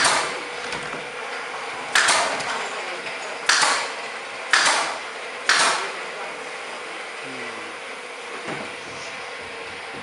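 Aluminium-framed interpreter-booth panels knocking and clattering as they are handled and fitted together: five sharp knocks in the first six seconds, then a few softer bumps, over a faint steady hum.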